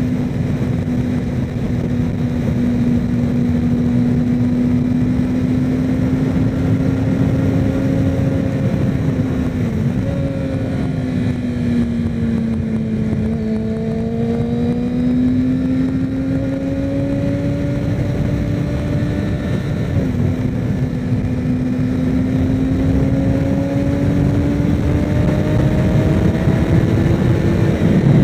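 Kawasaki Ninja ZX6R inline-four engine running at a steady cruise, with wind rush over the microphone. The engine pitch dips briefly twice, about ten and twenty seconds in, and sags slowly in the middle before climbing again.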